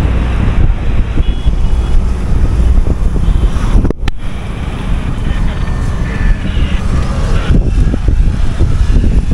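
Road traffic passing close by: a loud, steady rumble of vehicles. The sound drops out for a moment about four seconds in.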